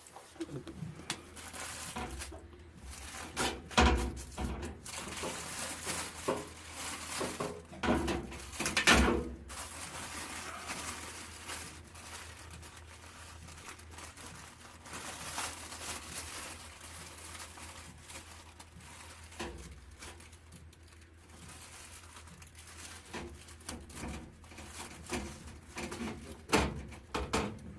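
Paper crinkling and rustling as it is handled, with irregular knocks and clatter; the loudest knocks come about four and nine seconds in.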